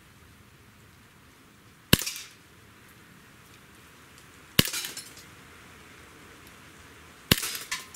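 Sig Sauer ProForce P229 green-gas blowback airsoft pistol firing three single shots about two and a half seconds apart, each a sharp crack with a brief rattle after it.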